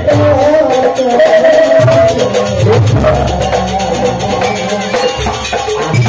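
Live jaranan ensemble music: a wavering melody line over drums, with a quick steady rattling beat.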